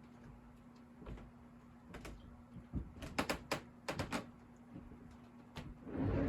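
Light clicks and taps from small objects handled at the workbench, with a quick cluster of them about three to four seconds in, then a louder brief scuffing thump near the end, over a faint steady hum.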